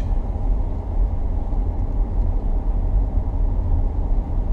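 Vehicle driving slowly along a wet dirt road: a steady low rumble of engine and tyres.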